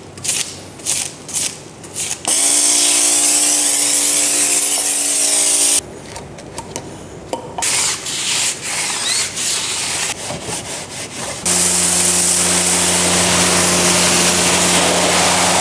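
A stiff wheel brush scrubs a wet alloy wheel and brake disc in short strokes. Twice it gives way to a pressure washer spraying the wheel, a steady hiss of the water jet over the whine of the washer's pump motor: once for about three seconds early on, then again from about three quarters of the way through, rinsing off the wheel cleaner.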